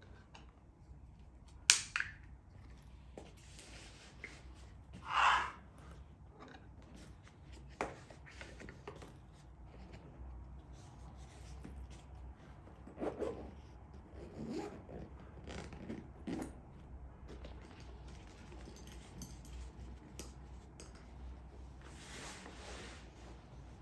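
Scattered handling noises of objects being moved and packaging being handled: a sharp click about two seconds in, a short scrape a few seconds later, then soft knocks and rustles.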